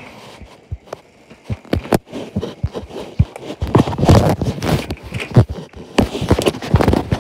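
Irregular footsteps with knocks and rubbing from a hand-held phone being carried, quieter for the first second and then busier.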